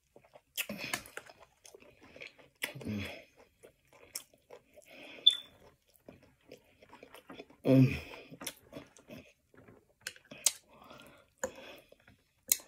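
A person chewing close to the microphone, biting and crunching crisp lettuce with hummus and tabbouleh, with irregular wet mouth clicks and crunches between bites.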